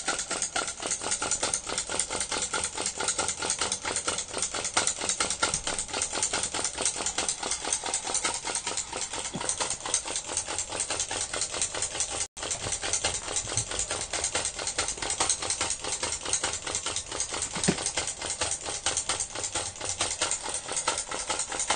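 Small model vacuum (flame-licker) engine running steadily, its piston and valve making a fast, even clatter.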